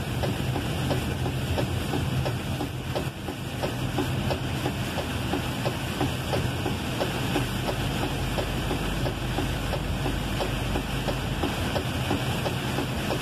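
Inside a truck cab on a wet highway: the engine's steady low drone under a constant hiss of tyres and spray, with rain hitting the windshield in many small, irregular ticks.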